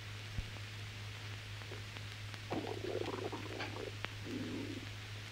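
A man's stomach gurgling: a long bubbling rumble about two and a half seconds in, then a shorter one about a second later. A steady low hum runs underneath.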